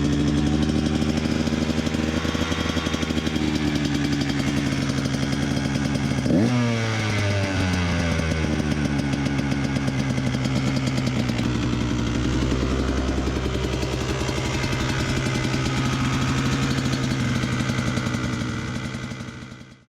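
2017 KTM 150 XC-W two-stroke single-cylinder engine idling steadily on its first start-up with a freshly installed RK Tek head insert, with one quick throttle blip about six seconds in.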